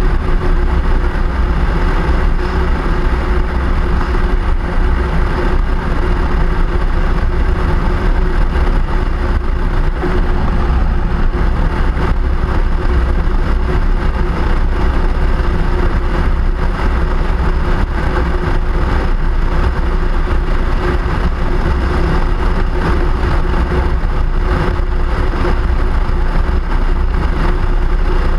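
Steady running noise of a vehicle on the move, with heavy wind rumble on the action camera's microphone and a constant hum, holding level without change.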